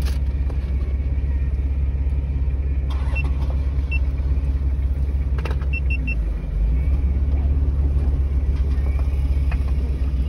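4WD engine running at low revs, a steady low rumble heard from inside the cab as the vehicle creeps along a dirt track, a little louder from about six and a half seconds in.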